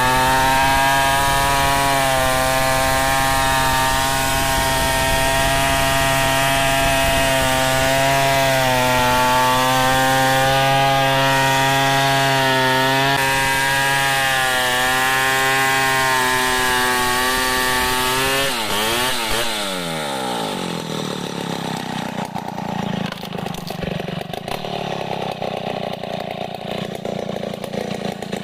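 Chainsaw at full throttle ripping lengthwise through a large log, its note wavering slightly as the load changes. About 18 seconds in the throttle comes off and the engine note falls steeply, after which the saw runs on more quietly and unevenly.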